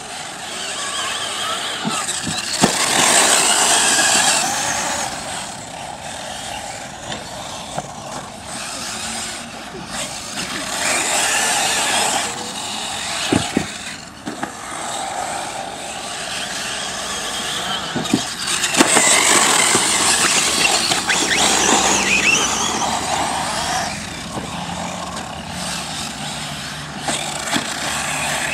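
1:8-scale brushless electric RC buggies racing on a dirt track: high motor whine and tyre noise swelling each time the cars pass close, three times, with a few sharp knocks from landings and hits.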